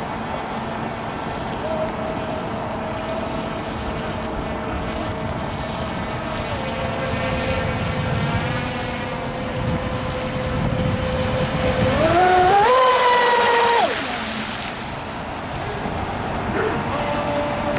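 Radio-controlled speedboat running on the water: a steady motor whine that climbs sharply in pitch about twelve seconds in as the throttle opens, then drops away about two seconds later. Wind and water rush run underneath throughout.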